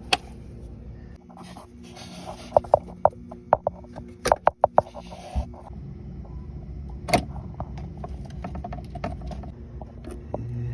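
Hand work on an engine's intake parts: a quick irregular run of sharp clicks and clatter, then a single loud click, over a low steady hum.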